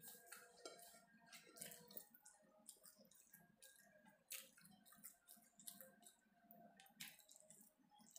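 Faint close-up chewing of a mouthful of food: wet smacking with irregular small clicks.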